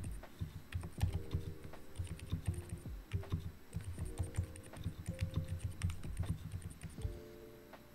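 Fast, continuous typing on a mechanical keyboard with silent Alpaca linear switches, pudding keycaps and EVA foam over a metal plate: a quiet, dense patter of soft, damped key strikes with only faint clicks. The typing dies away shortly before the end.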